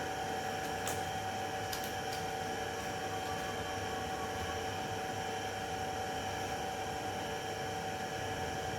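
Steady room background hum with an even hiss, like a running machine, and a few faint ticks in the first two seconds.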